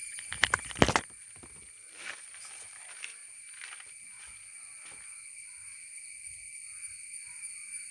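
A few sharp clicks and knocks in the first second as the mixer motor parts are handled, then faint scattered ticks over steady high-pitched background tones.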